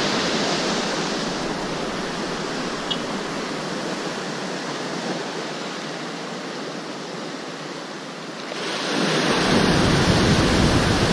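Ocean surf: a steady rush of breaking waves that slowly eases off, then swells again about nine seconds in.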